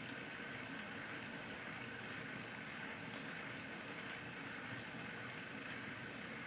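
Bachmann GWR 94XX pannier tank OO gauge model locomotive running on a rolling road at speed step four: its small electric motor and gears give a faint, steady, even whirr.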